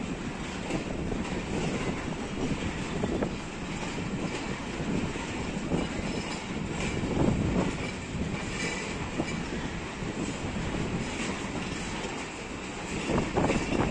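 Pakistan Railways passenger coaches rolling past, their wheels clacking over the rail joints with a steady rumble. Brief faint wheel squeals come a few times around the middle.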